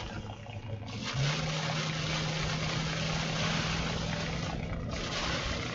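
Strong wind and wind-driven rain rushing against the storm-chase vehicle in surges, dropping off briefly twice. A steady low hum starts about a second in.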